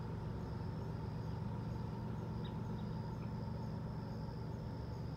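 Steady low rumble of background noise, with two or three faint short chirps about two and a half seconds in.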